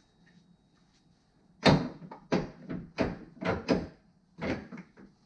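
A run of sharp clunks and knocks, about eight over three seconds, starting a little under two seconds in: tools and metal suspension parts being handled while front suspension components are taken back apart.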